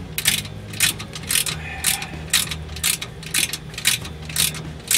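Socket ratchet wrench clicking in a steady rhythm, about two strokes a second, as it is swung back and forth tightening the nut of an exhaust pipe clamp at the turbocharger outlet.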